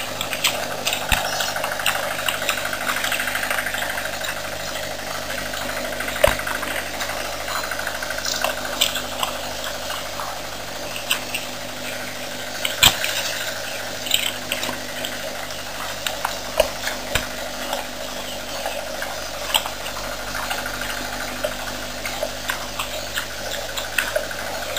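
Warthog cropping and chewing grass: irregular crisp snaps and crunches, a few every second or two, over a steady background hiss.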